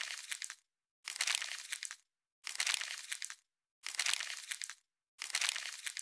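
Popcorn-popping sound effect: a dense crackle of many small pops, coming in bursts about a second long with short silent gaps, roughly one burst every second and a half.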